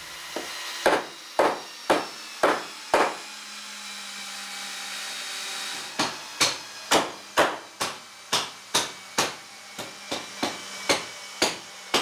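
Hammer blows on timber, about two a second, each with a short ring. A steady hum fills a pause between about three and six seconds in.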